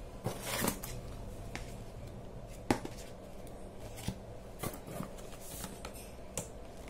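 Small paperboard product boxes being handled and lifted out of a corrugated cardboard shipping carton: a rustle of card near the start, then scattered sharp taps and knocks of box against box.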